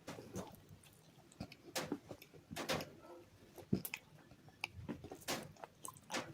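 Close-up crunching and chewing of hard, brittle bars coated with a white paste: irregular sharp crunches and crackles, several a second, with softer chewing between.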